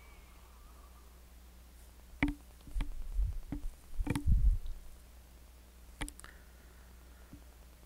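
Handling noise at the altar: a metal chalice set down, with knocks and low thumps as hands and body press on the altar and its book near the microphone. There is a sharp click about two seconds in, a cluster of knocks and heavy thumps through the middle, and one more click later. A steady low electrical hum sits underneath.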